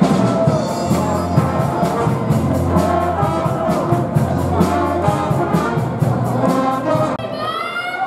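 Brass-heavy music with a fast, even beat and a steady bass line, cutting off suddenly about seven seconds in; voices follow.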